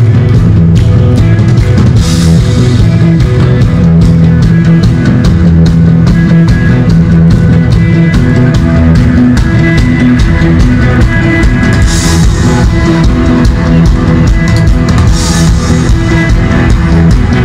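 Live band playing a driving folk-rock number with a drum kit, frame drum, bowed bass and guitar over a steady fast beat; a cymbal crashes three times.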